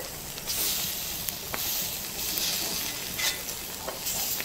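Goat brain pieces sizzling as they fry in oil, a steady hiss with a few scattered crackles.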